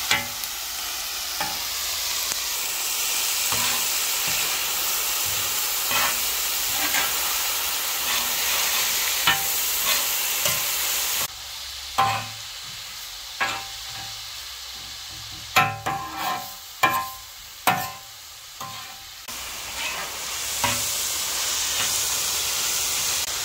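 Sliced onions and bell pepper strips sizzling on a large flat griddle while a metal spatula scrapes and clacks against the plate as they are stirred. In the middle stretch the sizzle falls away and the spatula strikes come in a quick run.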